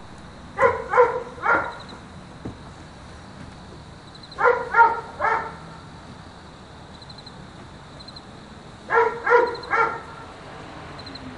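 A dog barking in groups of three quick barks, three times over, a few seconds apart.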